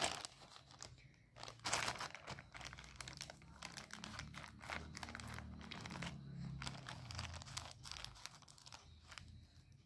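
A plastic courier mailer bag crinkling and crackling as it is handled and cut open with scissors.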